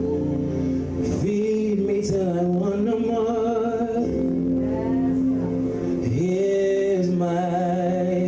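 Gospel praise-and-worship music: a slow worship song with held instrumental chords and a sung melody line that enters about a second in.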